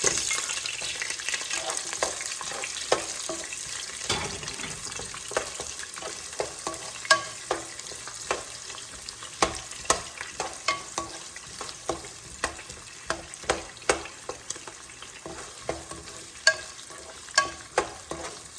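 Onions frying in hot canola oil in a pan, a steady sizzle that is loudest at the start and dies down gradually as they cook. A utensil stirring them knocks against the pan in sharp clicks about once a second.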